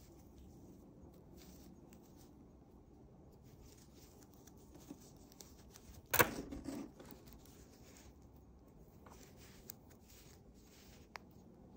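Quiet hand-knitting: soft scratchy rustling of yarn and wooden knitting needles as stitches are worked, with faint ticks, and one sharp click about six seconds in.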